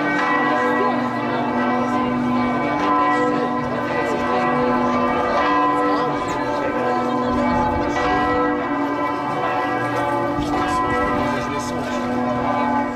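Church bells ringing continuously, several pitches sounding and overlapping throughout.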